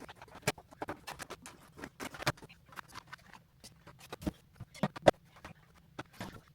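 A person eating: a string of irregular short clicks, taps and crunches from chewing and utensils, with the sharpest click about five seconds in.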